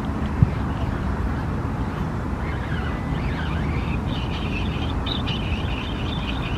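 Steady low outdoor rumble, with one sharp click about half a second in and high, wavering bird chirps from about two and a half seconds on.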